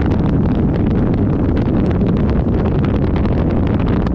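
Wind buffeting the microphone of a hood-mounted camera, over the steady rumble of a Dodge Ram 3500 pickup rolling along a gravel dirt road, with frequent small crackles and ticks throughout.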